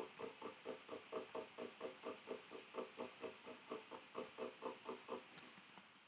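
Rhythmic clicking, about four to five clicks a second, each click carrying a short buzzy tone. It stops about five seconds in.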